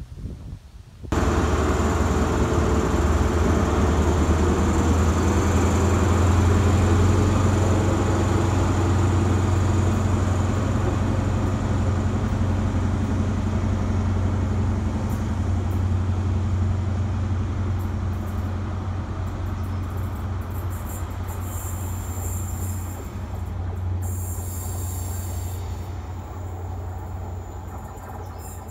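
Diesel HST (Class 43 power car) running under power as the train draws away: a steady engine hum with a thin high whistle, cutting in suddenly about a second in and fading slowly as it recedes.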